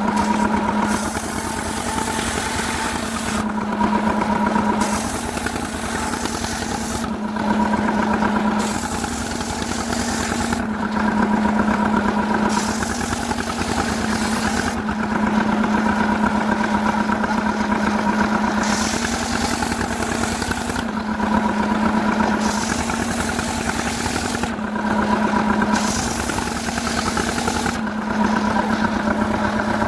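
Stihl two-stroke chainsaw running hard as it cuts wood. Its engine note swells and eases in a regular cycle of about every three to four seconds.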